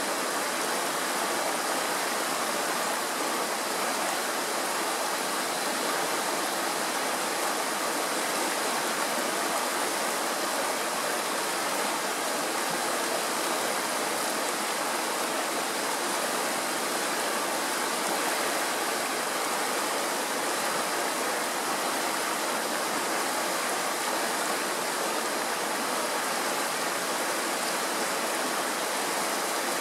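Kirowa Woda, a Tatra mountain stream, rushing over rocks in shallow white-water riffles: a steady, even rushing with no breaks.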